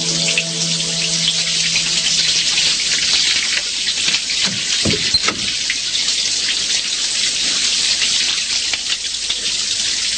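Shower water running in a steady, even hiss.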